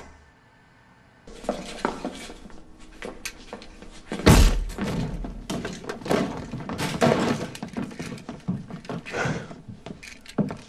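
A run of thuds, knocks and breaking crashes, with one heavy crash about four seconds in, after a short quiet pause at the start.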